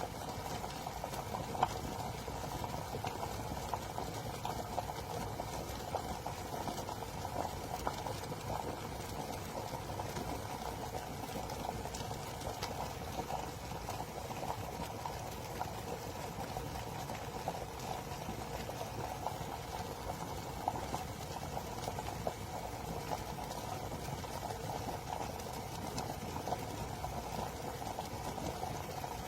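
Water boiling in a 1500-watt glass electric kettle: a steady bubbling rumble with small crackles throughout.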